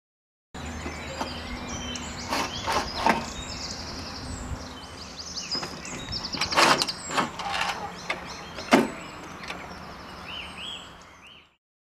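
Metal length profile of a NOVUM-XV coffin lowering device being slid off its corner unit: scraping and several metallic knocks and clanks, the sharpest about nine seconds in.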